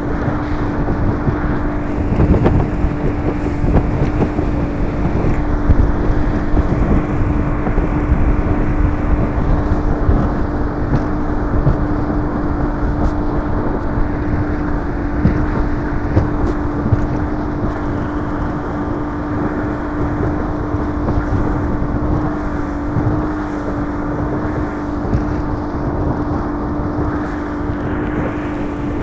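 Mercury 150 V6 two-stroke outboard driving a bass boat at a steady cruising speed: one constant engine note that holds its pitch, over heavy wind rumble on the microphone.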